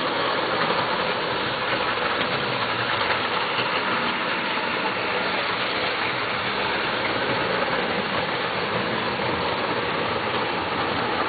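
HO-scale model XPT train running past on the layout track: a steady mechanical running noise from its motor and wheels on the rails.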